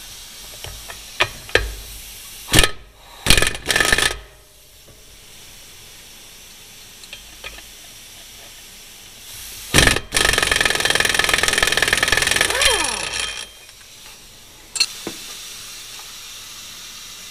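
Pneumatic air hammer hammering the brake anchor pins out of a heavy truck's front axle brake spider. It runs in a few short bursts about three seconds in, then in one longer rattling burst of about three seconds near the middle, with a single sharp knock after it.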